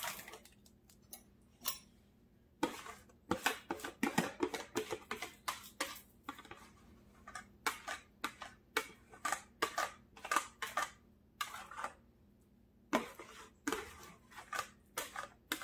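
A plastic mixing bowl tipped over a glass baking dish while corn pudding batter is scraped out of it: a run of short scrapes and knocks, several a second, starting a couple of seconds in, with a brief pause near the end.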